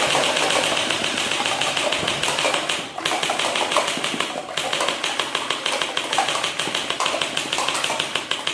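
Toy gun firing in long runs of rapid clicking, with short breaks about three and four and a half seconds in.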